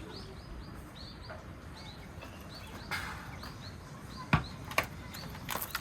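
Small birds chirping over and over, short quick calls several times a second. About three seconds in there is a brief rustle, and near the end come three sharp clicks or knocks, louder than the birdsong.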